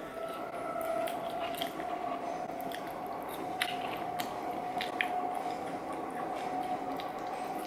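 Close-miked eating: biting and wet chewing of fast food, with scattered small crunchy clicks. A steady faint hum runs underneath.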